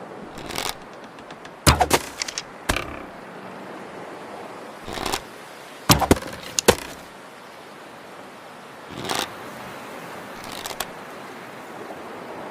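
Bow and arrow shots: a string of sharp snaps and thwacks, some single and some in quick clusters of two or three, over a steady hiss.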